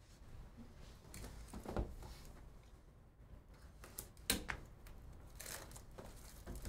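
Faint handling noise: a shrink-wrapped cardboard card box picked up and handled, with a few soft knocks and rustles, the loudest about two seconds in and again about four seconds in.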